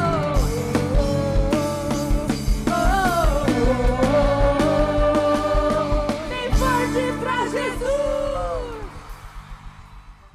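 Band playing the closing bars of an upbeat worship song, a singer's wordless melody over a steady kick-drum beat. About six and a half seconds in the beat stops, a final chord and vocal note are held, then everything fades out.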